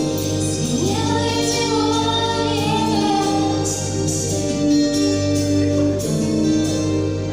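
A woman singing with vibrato over a steady instrumental accompaniment, recorded live; her voice is clearest in a held line about a second in.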